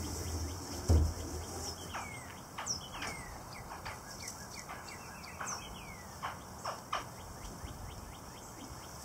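A kayak pivoting down on a Rhino Rack T-Load loader arm, with a dull thump about a second in and a few sharp knocks between six and seven seconds in. A bird calls with short falling chirps throughout.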